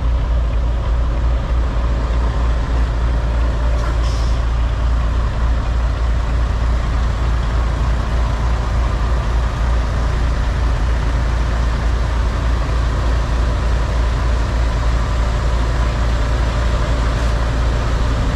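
Semi truck's diesel engine running steadily at low speed while reversing, heard inside the cab as a constant low rumble, with a short high hiss about four seconds in.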